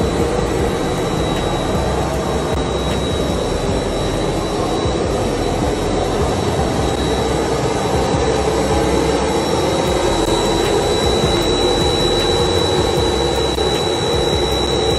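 Business jet engines running on the ramp: a steady, loud roar with a constant high-pitched whine over it.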